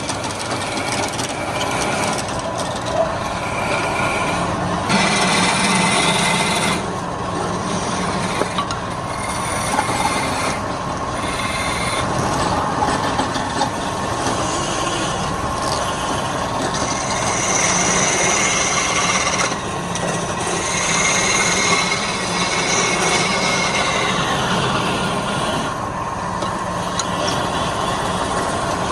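Wood lathe running while a turning tool cuts the spinning wood: a steady scraping rush with high squealing tones that come and go.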